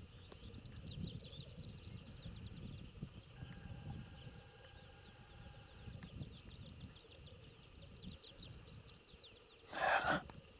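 A small songbird singing outdoors: two runs of rapid, short, high descending notes, each a few seconds long, over a low, uneven rumble. About ten seconds in comes a short, loud rustle, the loudest sound of all.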